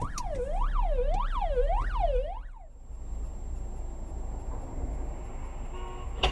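Electronic siren wailing quickly up and down, about four rises and falls, then cutting off after about two and a half seconds. Steady road noise follows, with a sharp click near the end.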